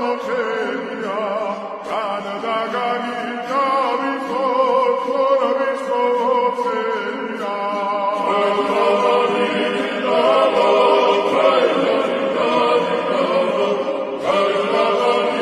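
Music with voices chanting and singing together like a choir in long, wavering notes, growing fuller about halfway through.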